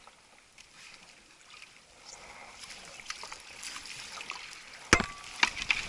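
Paddle strokes splashing and dripping as an aluminum canoe is driven at a beaver dam. About five seconds in comes a sharp knock with a brief metallic ring as the hull strikes the dam's sticks, followed by a few smaller knocks.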